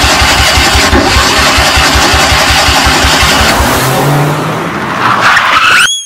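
Cartoon sound effect of a vehicle engine revving hard, loud and rough with a rapid low chugging, ending in a quick rising whistle-like glide.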